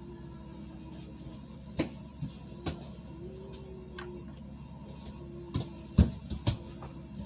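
About half a dozen light clicks and taps from a makeup brush and small concealer bottle being handled, the loudest a few close together about six seconds in, over a steady low room hum.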